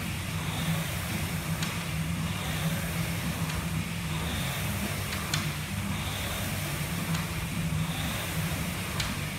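Air rowing machine being rowed steadily: the fan flywheel whooshes with each drive, about one stroke every two seconds, with a sharp click at each stroke over a constant low drone.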